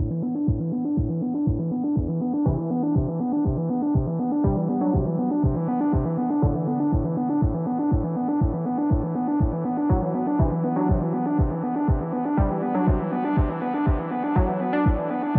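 Electronic background music: synth chords over a steady kick-drum beat, about two beats a second, the sound gradually growing brighter.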